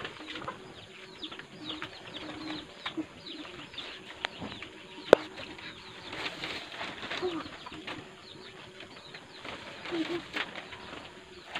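Large sheets of manila paper rustling and crinkling as they are handled and pulled down, with a sharp click about five seconds in.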